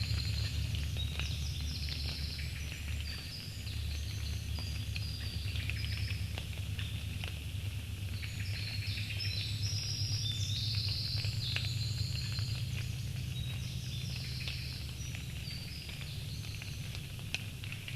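Small birds chirping and twittering in quick repeated calls over a steady low hum, with a few faint clicks.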